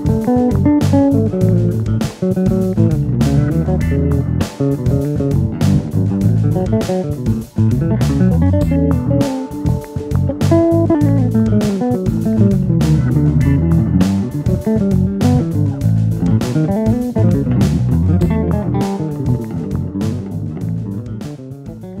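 Electric bass played through a Zoom B1X Four bass multi-effects processor: a melodic line of plucked notes over a steady beat of sharp clicks, fading out near the end.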